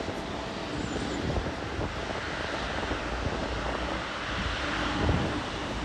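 Boeing 777-200ER's twin jet engines running at low taxi power, a steady even noise, with wind buffeting the microphone in low rumbling gusts.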